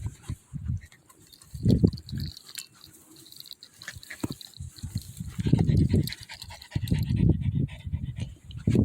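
Dog panting, at first in short separate breaths and then faster and steadier from about halfway through, winded after exercise in the heat.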